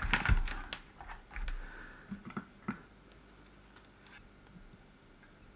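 A few light clicks and taps from multimeter probes and small parts being handled against a circuit board on the bench, bunched in the first three seconds.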